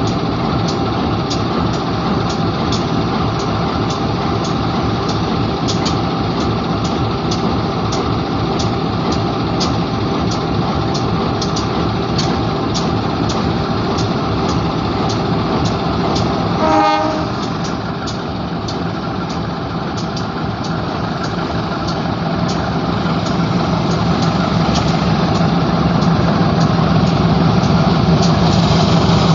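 Train cars rolling past with a steady rumble and a regular sharp click from the wheels about twice a second: the odd wheel sound. About two-thirds of the way through there is one brief pitched toot, and a steady low hum then grows louder toward the end.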